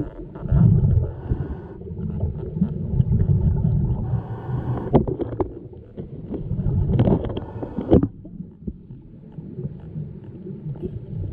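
Underwater sound muffled through a camera housing: low gurgling rumbles of a scuba diver's exhaled regulator bubbles, coming in bursts every couple of seconds, with scattered clicks and knocks.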